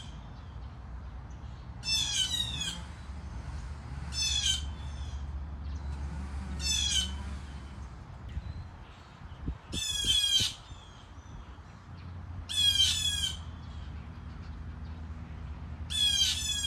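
A bird repeating a harsh, squawking call six times, about every two to three seconds; each call is a quick run of short notes that fall in pitch. A steady low rumble runs underneath.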